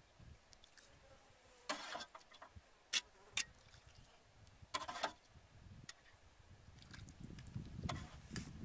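A handful of light clinks and scrapes of a steel bowl and spoon against a ceramic bowl as sliced shallot, chili and broth are tipped onto steamed fish. The clinks are separate and short, two of them close together about three seconds in.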